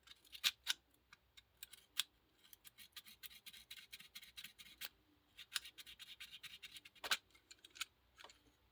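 Fingernail file scraping the metal contacts of a GFCI outlet in quick short strokes, in two fast runs with a few sharper ticks: filing off arc-burn pitting left by sparking.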